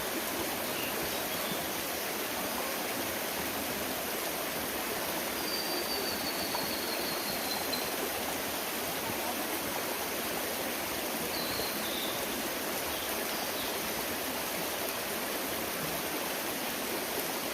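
Mountain stream running steadily. A bird gives a thin, high whistle that falls slowly in pitch over a couple of seconds about six seconds in, with a few short high notes around twelve seconds.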